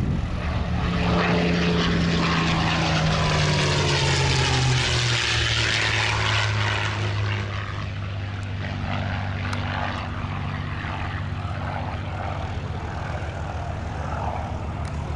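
A P-51 Mustang's Packard Merlin V-12 engine as the fighter flies past overhead. The engine note drops in pitch as it passes, about four to five seconds in, then runs on at the lower pitch, growing a little quieter as the plane moves away.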